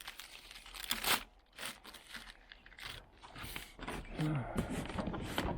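Cardboard packaging being handled, crunching and crinkling in a run of short, sharp crackles.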